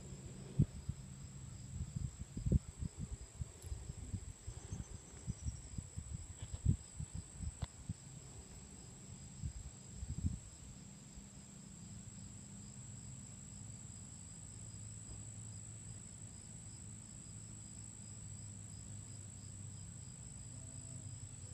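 Steady high-pitched insect chorus of crickets trilling, with a fainter pulsing chirp beneath it. For about the first ten seconds, soft low knocks and rubbing sound close to the microphone, then they stop.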